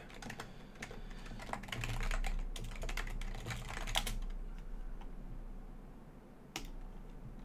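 Typing on a computer keyboard: a quick run of key clicks for about four seconds, then a single click near the end.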